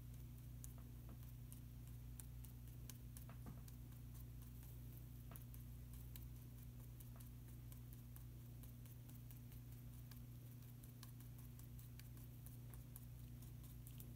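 Faint, irregular little ticks and light strokes of a paintbrush dabbing and working on the painting surface, over a steady low hum.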